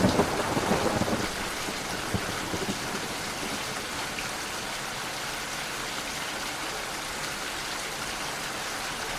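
Steady rain falling, louder and fuller in about the first second, then settling into an even hiss.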